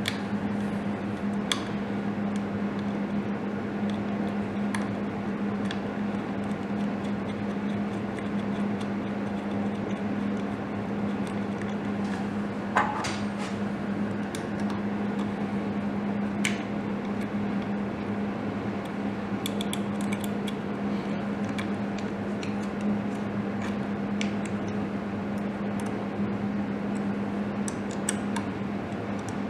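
Scattered small metal clicks and clinks as spacers, washers and a crankshaft position sensor are handled and screwed onto an aluminium bracket, the loudest knock about halfway through. Under them, a steady low hum.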